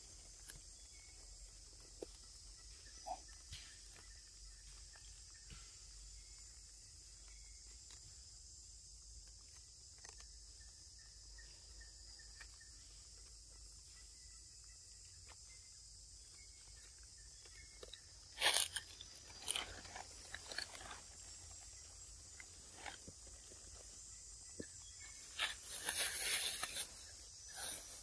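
A monkey eating, with crisp crunching and chewing: a few scattered crunches at first, then louder, denser crunching and crackling over the last ten seconds or so, against a steady high hiss.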